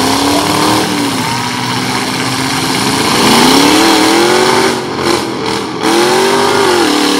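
Derby pickup truck engines revving hard, the pitch climbing and falling again and again as the locked trucks strain against each other in the dirt. The level dips briefly twice around five seconds in.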